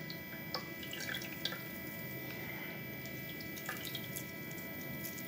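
Phalsa juice dripping from a thin cloth bundle of crushed fruit pulp into a bowl as it is squeezed by hand: faint scattered drips over a steady low background.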